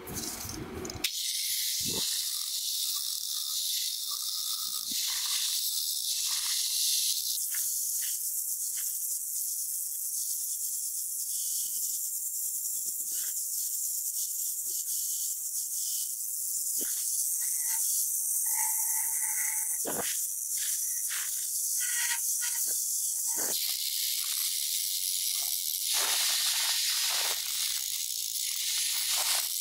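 Angle grinder grinding rust off the steel head of an old hammer: a steady high hiss of the abrasive disc on metal, with its tone shifting a couple of times.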